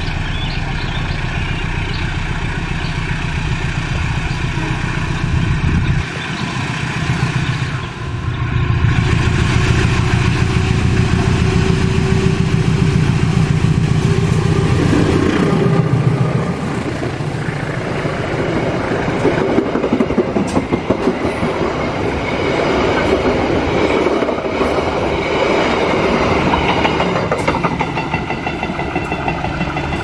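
KAI CC 201 diesel-electric locomotive passing at speed with a steady low engine drone that swells as it draws level about halfway through. The passenger coaches then roll by with a rhythmic clickety-clack of wheels on the rails.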